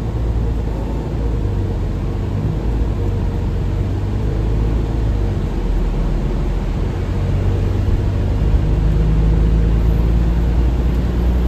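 Cabin sound inside a MAN Lion's Intercity LE 13 diesel bus under way, heard from the rear seats: a steady engine drone with road rumble. The low drone grows louder about eight seconds in.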